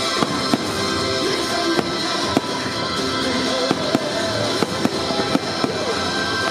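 Aerial fireworks shells bursting: repeated sharp bangs and crackles, roughly two a second, over the fireworks show's music soundtrack.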